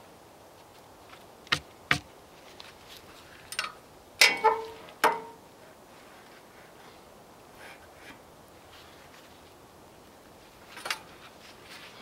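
A long steel straightedge handled against a timber beam and a sawmill's steel track: scattered sharp clicks and taps, with the loudest a quick cluster of ringing metal clanks about four seconds in and another tap near the end.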